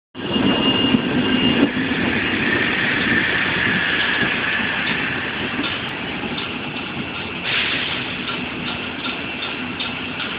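Electric TGV Duplex trainset pulling out of the station on the adjacent track: a steady rumble of running gear with a faint high electric whine. A brighter swell of noise comes in about seven and a half seconds in.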